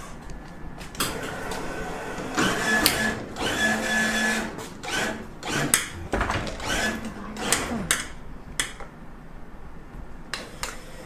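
Claw crane machine's gantry motors whirring in short runs as the claw is steered across the prize pile, with clicks and clacks from the mechanism in between.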